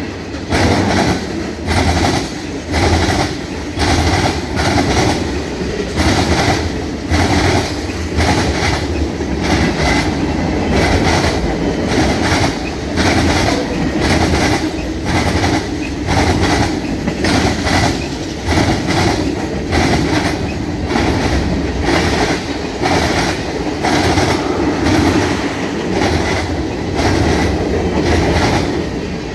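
Freight train cars rolling over a jointed railroad diamond crossing, the wheels clacking over the rail joints in a steady, even rhythm above a continuous rumble.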